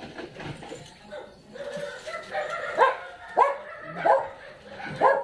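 A dog barking, four loud barks in the second half, with softer yips before them.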